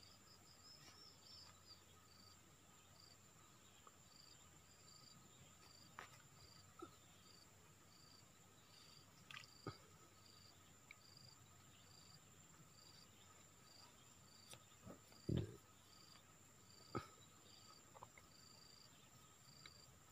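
Faint insects calling: a steady high buzz under a short high chirp repeating about every two-thirds of a second. A few scattered clicks and one louder low thump about fifteen seconds in.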